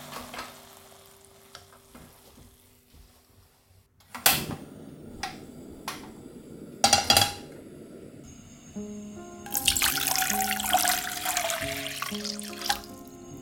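A few sharp knocks of kitchen utensils or cookware, then water pouring or running for about three seconds, with a faint falling tone, over soft background music.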